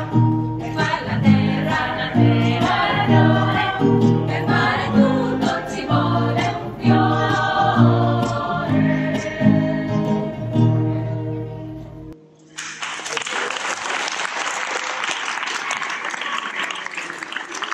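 Small women's choir singing with classical guitar accompaniment. The song ends about twelve seconds in, followed by an audience applauding.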